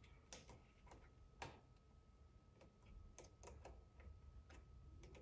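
Faint, irregular small clicks and light taps as hands adjust a camber gauge on the front wheel hub of a 1/10 electric touring car, setting the camber to about 2 degrees.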